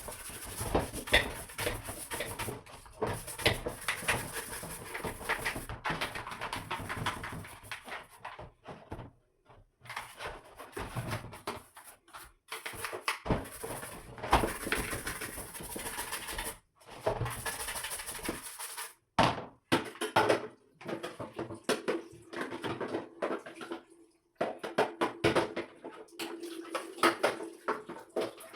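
A hand brush scrubbing a soaked washing-machine part in quick, rough strokes, in runs broken by short pauses. A steady low hum comes in near the end.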